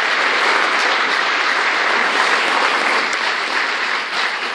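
Theatre audience applauding steadily, a dense wash of many hands clapping that eases slightly near the end.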